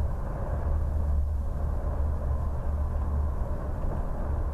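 Steady low rumble of engine and road noise inside the cab of a bus cruising along a highway.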